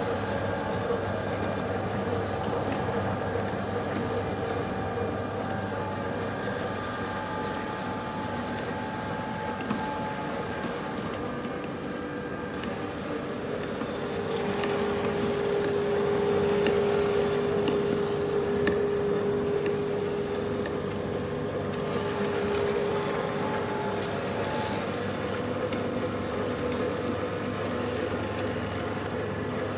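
Baader 694 meat-bone separator running steadily as it presses cod frames through its perforated drum into mince: an even mechanical hum with several held tones. A stronger tone comes in about halfway through and drops away some ten seconds later.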